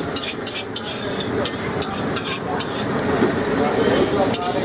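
Metal spatula scraping and clattering against a large iron wok as chicken fried rice is stir-fried, with repeated scrapes over a steady sizzle.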